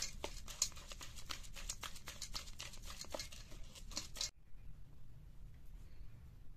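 Spring-coil whisk beating eggs in a stainless-steel bowl, clicking and scraping against the metal at about four or five strokes a second. The whisking stops abruptly about four seconds in.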